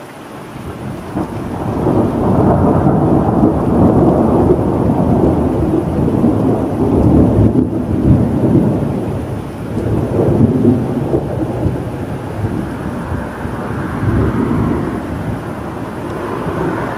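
A long rolling thunder rumble over steady rain: it builds over the first two seconds, stays loud for several seconds in rolling swells, then slowly dies away.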